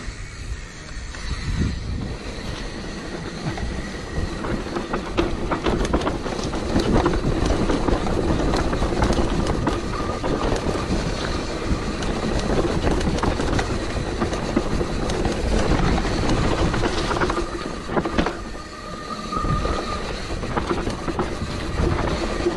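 Hardtail mountain bike rattling and clattering down a rough dirt trail: chain slap, frame and tyre knocks over roots and ruts, and wind rushing past the mic. A short, thin brake squeal comes twice in the second half.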